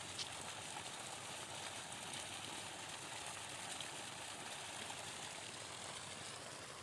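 Steady rushing, water-like noise with no clear rhythm, and one faint click just after the start.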